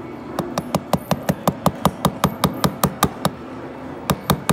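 Small hammer tapping a pin-remover punch in quick, even metal-on-metal strikes, about five a second, driving a pin out of a steel watch bracelet link. The taps pause briefly about three seconds in, then a few more follow.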